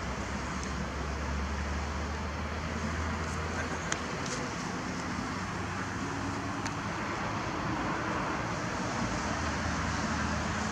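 Steady outdoor background noise, a low rumble under an even hiss, with two faint short clicks about four and seven seconds in.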